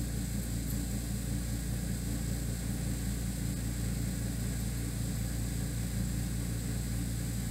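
Steady low hum of a room air conditioner running, even and unchanging throughout.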